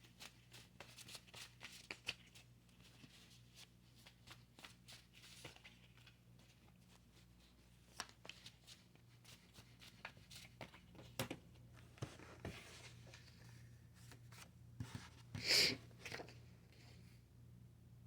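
Faint clicks and rustles of tarot cards being handled, with one louder brief rustle about fifteen seconds in, over a steady low hum.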